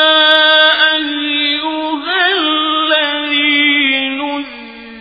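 A man's voice recites the Quran in a slow, melodic chant, holding long notes. About two seconds in, a wavering ornament breaks up the held notes. Near the end the pitch drops and the voice grows quieter as the phrase closes.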